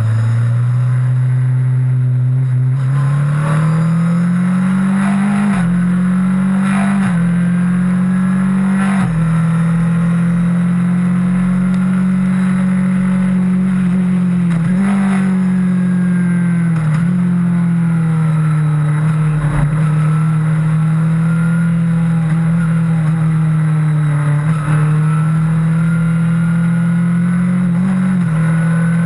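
Onboard sound of a Skip Barber single-seater formula race car's engine under hard acceleration at a race start. The engine note climbs over the first few seconds, then holds high with brief dips and steps as the driver shifts and lifts through the corners.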